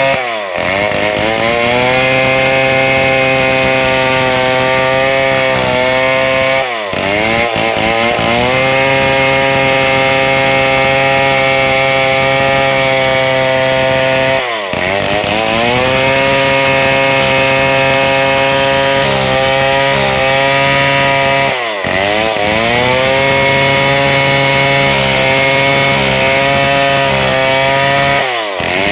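Two-stroke chainsaw running at full throttle while cutting a large log, giving a steady high engine note. About every seven seconds it briefly drops out and its pitch dips, then climbs back up.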